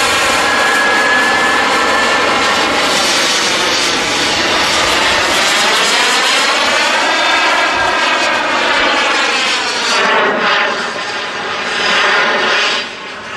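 Radio-controlled model jets flying overhead with a loud engine whine. The pitch rises as one comes in and falls as it passes away, and the sound thins and fades near the end.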